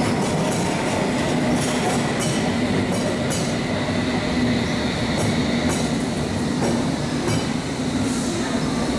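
London Underground S stock train slowing along the platform, its wheels clicking over rail joints every second or so above a steady rumble, with a faint steady high whine.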